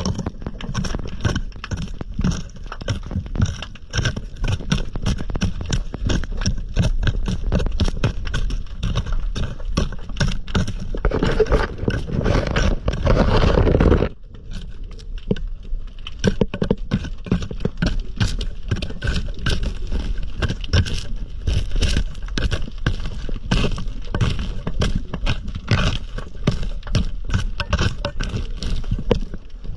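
Underwater clicking and scraping as a diver works sea urchins off the rocks with a metal hook and into a mesh net. A louder rushing noise swells for a few seconds around the middle and cuts off suddenly.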